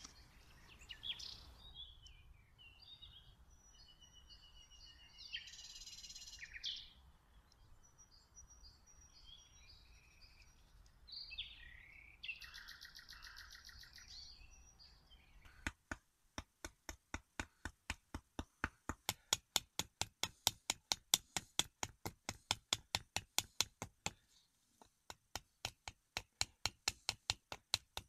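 Small birds chirping in scattered short calls in a winter forest. Partway through, a loud, fast, evenly spaced train of sharp clicks takes over and runs on with a brief pause near the end.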